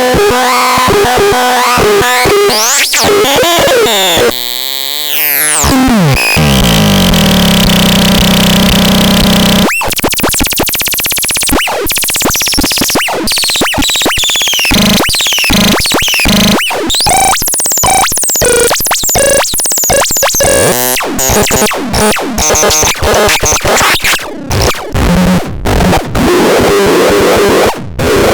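Harsh electronic synthesizer noise from the SELTER: stepping and sweeping pitches and a warbling wobble give way to a falling glide and a drone. From about ten seconds in, the sound turns into rapid, stuttering, glitchy chopped noise with high whistling sweeps.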